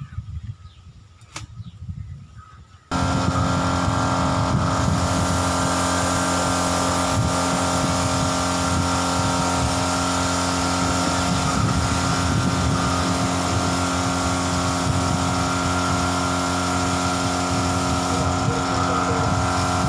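Air compressor switching on abruptly about three seconds in and running steadily: a loud hiss with a constant motor hum. Before that it is quiet, with one faint click.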